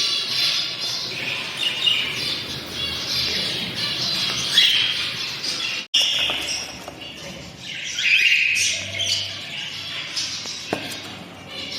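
A flock of budgerigars chattering and squawking in a dense, continuous mix of warbling chirps, with a split-second break about six seconds in.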